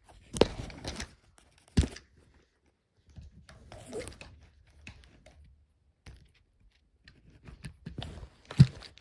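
Handling noises at close range: a sharp knock about half a second in and another at about two seconds, soft rustling and light clatter in the middle, and a last knock near the end.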